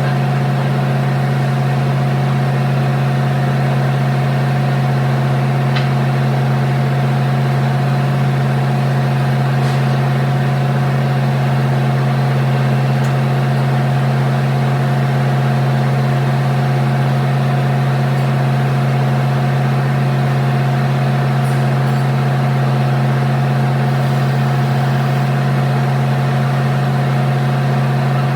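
An engine idling steadily, a constant low hum that holds one speed without revving.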